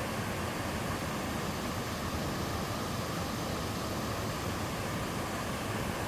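Waterfall in a mountain stream, water rushing steadily without a break.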